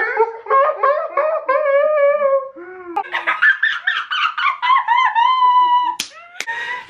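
Two girls laughing hard in long, high-pitched squeals and wheezes, with two sharp clicks about six seconds in.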